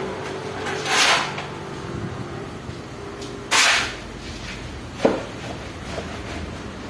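Hollow-block masonry work: two short scrapes about two and a half seconds apart, then a sharp knock about five seconds in.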